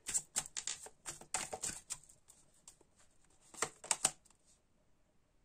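Oracle cards being shuffled and flicked through by hand: a quick run of crisp card snaps and clicks over the first two seconds, with a couple more just before the four-second mark.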